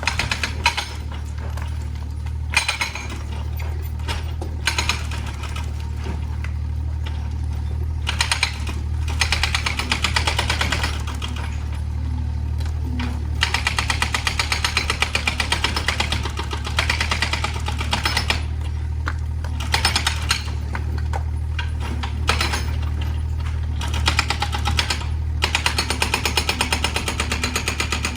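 Excavator working on demolition: a steady engine hum under stretches of rapid, machine-like hammering that start and stop every few seconds, with occasional sharper knocks.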